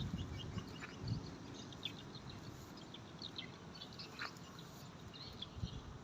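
Small birds chirping faintly, with many short high chirps throughout, and a couple of soft low thumps about a second in and near the end.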